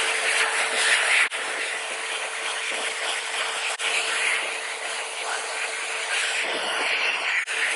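AirBOX H compact stainless-steel hand dryer running, blasting a steady jet of air onto wet hands: a strong rushing hiss with a faint steady tone beneath it.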